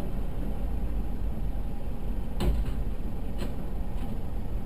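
Steady low rumble of a car's cabin noise, with a sharp knock about two and a half seconds in and a fainter knock about a second later: the plastic portable toilet carried on a loader banging against a taxi.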